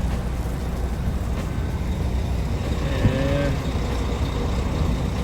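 Diesel truck engine running steadily with a low rumble. A brief low tonal hum sounds about three seconds in.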